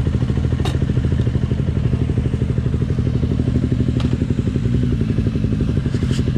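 KTM Duke 125's single-cylinder four-stroke engine idling steadily at a standstill, with a few light clicks over it.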